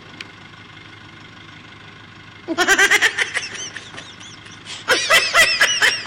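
Golden retriever whining and yelping excitedly in quick, high, rising-and-falling cries while being held on a stay. A short run of cries comes about two and a half seconds in, and a longer one starts about five seconds in.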